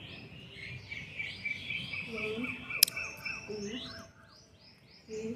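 Birds chirping and singing, a quick run of high repeated chirps and short sweeping notes. A single sharp click comes a little under three seconds in.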